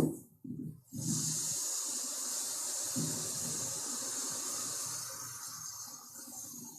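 High-voltage transmission line corona discharge hissing steadily over a rough low buzz, with a click and brief dropout just after the start. It is the sign of the air around the conductors breaking down, which happens most in wet, stormy weather.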